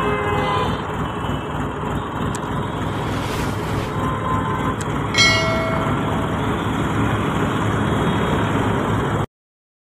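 Tractor engine running steadily while the loader's grapple bucket works, with road traffic behind it. About five seconds in, a sharp metallic clank rings briefly as the steel grapple fingers close onto the bucket. The sound cuts off suddenly near the end.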